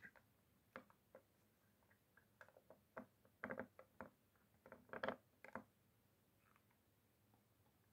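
Faint, irregular small clicks and light taps of tools and parts being handled on a workbench, with two quick clusters about three and a half and five seconds in.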